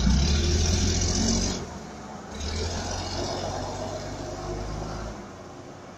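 Double-decker bus pulling away, its engine rumbling low with a hiss above it. The sound dips briefly about a second and a half in, then drops off about five seconds in as the bus moves off.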